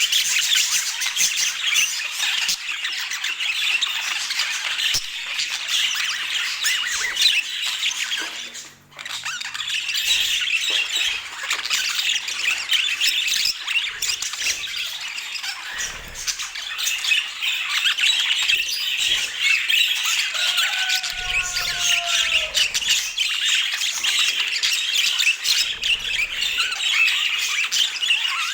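Budgerigars chattering and chirping in a dense, continuous high twitter. The chatter breaks off briefly about nine seconds in, and a few falling whistled notes come through about three-quarters of the way in.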